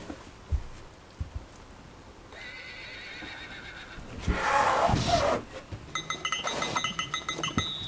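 A horse whinnying, added as a comic sound effect, loudest about four to five seconds in, then a run of hoof clip-clops near the end.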